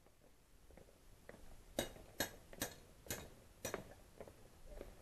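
A run of five sharp clicks about half a second apart, starting about two seconds in, followed by a few fainter ones near the end.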